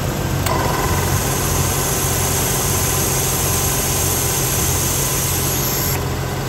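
Jeep engine idling steadily, with the onboard air compressor running over it: a steady hiss and whine that starts abruptly about half a second in and cuts off suddenly near the end.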